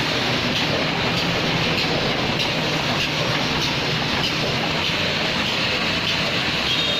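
Shrink-film label cutting machine for bottle caps running, a steady mechanical noise with faint clicks repeating about every half second.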